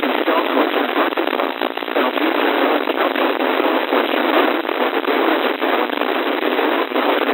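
Radio receiver static: a steady, thin hiss with frequent crackles and pops, and no voice on the channel.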